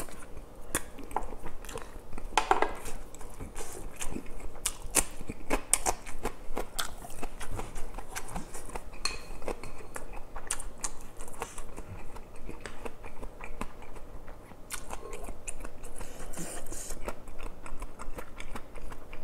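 Close-miked chewing with many sharp mouth clicks, mixed with a wooden spoon scooping and knocking in a stone pot of tofu cheonggukjang.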